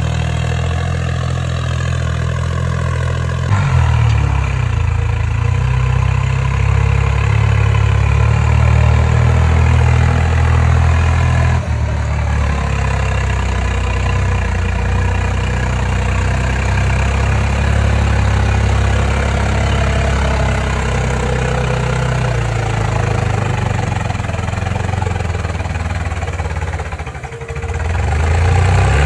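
Tractor diesel engine running hard as it pulls a loaded trolley, under enough load to lift the tractor's front wheels off the ground. The engine gets louder about three and a half seconds in, dips briefly near the end, then picks up again.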